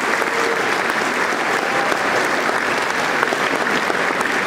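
Large audience applauding, steady clapping that holds at one level throughout.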